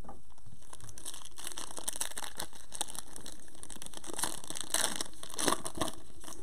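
Foil wrapper of a trading card pack crinkling and tearing as it is torn open by hand and the cards pulled out. The crackling runs on throughout and is loudest in a few bursts about four to six seconds in.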